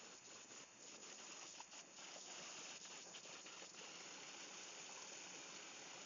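Small rocky stream running over boulders: a faint, steady rush of water, with a few brief ticks of splashing in the first half.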